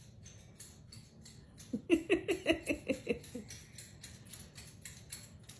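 A pet bird calling: a quick run of about eight short, pitched calls lasting about a second and a half near the middle, with faint light clicks and scratching throughout.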